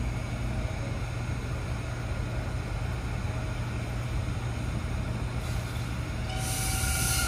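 Steady low rumble. About six seconds in, a loud hiss of steel wheels on rail and high whining tones rise as a subway train draws near.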